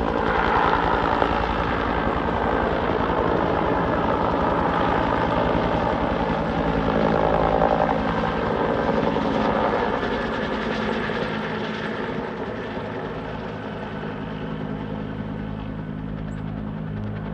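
Helicopter running overhead: a steady, loud rotor and engine sound that eases off somewhat in the second half as it moves away.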